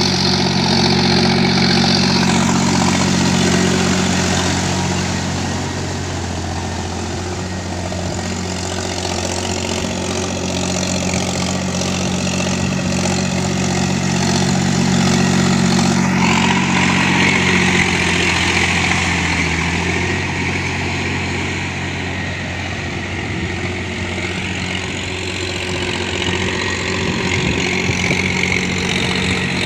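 Mahindra 265 tractor's three-cylinder diesel engine running steadily, its note shifting slightly now and then, with a hiss above it.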